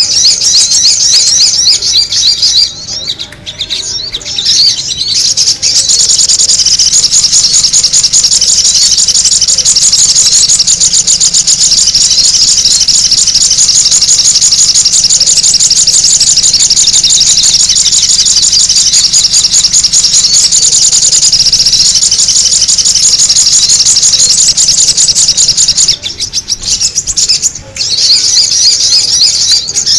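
Sogon bird lure call: a loud, continuous, rapid high-pitched chattering. It breaks off briefly about three seconds in and again near the end.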